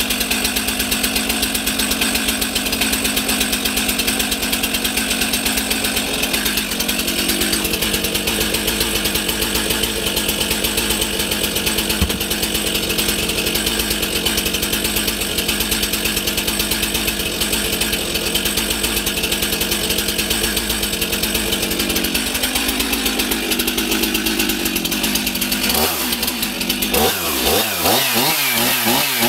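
Stihl MS 362 chainsaw's two-stroke engine running without a break, its pitch shifting about six seconds in and again around twenty-two seconds, then wavering up and down near the end.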